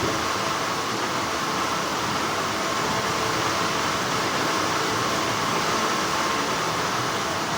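Continuous, steady hum of textile factory machinery, an even mechanical noise with a slightly stronger mid-pitched band.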